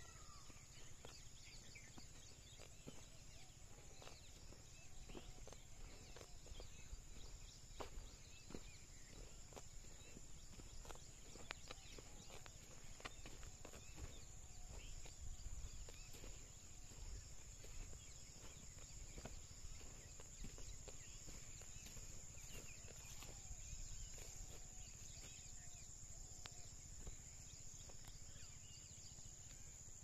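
Faint rural outdoor ambience: a steady high-pitched drone with scattered short animal chirps and light ticks over a low rumble.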